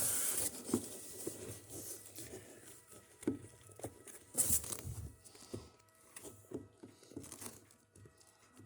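Pages of a comic book being turned and handled: soft paper rustling with scattered light ticks, and a brief louder swish near the start and again about halfway through.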